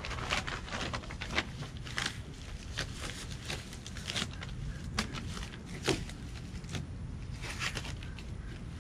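Brown masking paper crinkling and rustling as it is handled and blue painter's tape being peeled off a car door, in a run of irregular crackles and sharp ticks over a steady low background rumble.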